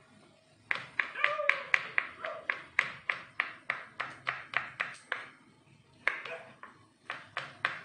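Kitchen knife chopping mushrooms on a wooden cutting board: quick, even taps at about four a second, with a short pause about five seconds in before the chopping resumes.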